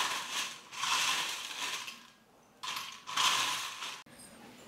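Crisp, freshly fried omapodi (thin gram-flour sev) being crushed and broken up by hand on a steel plate: a few bursts of dry, crackling crunches that stop about four seconds in.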